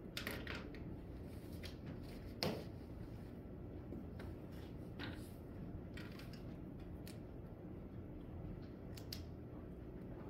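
Quiet classroom room tone: a steady low hum with scattered small clicks and taps, and one louder knock about two and a half seconds in.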